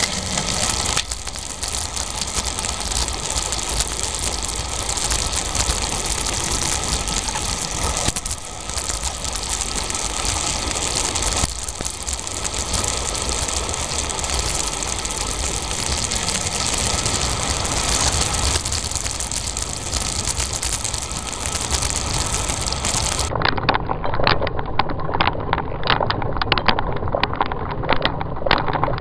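Wind rushing over the microphone and tyre noise of a bicycle rolling along a paved path. Near the end the sound cuts abruptly to a duller recording with a run of sharp clicks.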